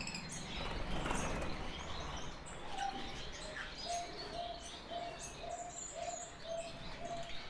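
African lovebirds calling in an aviary: scattered short high chirps, and from about three seconds in a short low note repeated about twice a second.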